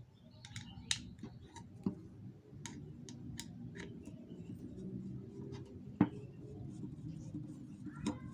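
Hands handling and fitting 3D-printed plastic pump parts: scattered light clicks and taps, with one sharper click about six seconds in.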